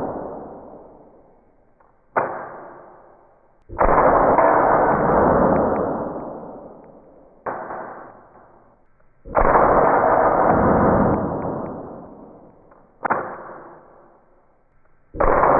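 CO2 BB air pistol shooting at a target, three times in a row. Each time there is a short sharp crack, then about a second and a half later a louder bang that dies away slowly over a few seconds.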